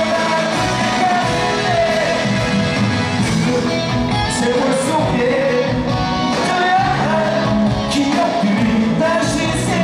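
Live pop-rock music heard in a large arena: a singer carrying the melody over a full band with drums and cymbals, loud and steady.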